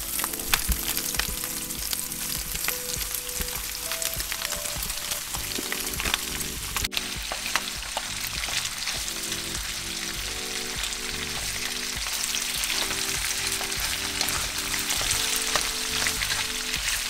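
Bacon and sliced andouille sausage sizzling in hot bacon grease in a nonstick wok, stirred and pushed around with a wooden spatula as the sausage goes in.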